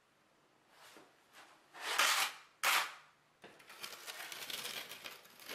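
Steel trowels scraping thin-set mortar: a few short scrapes, the loudest about two seconds in, then a couple of seconds of fine, rapid scraping and clicking as the mortar is worked into the corner.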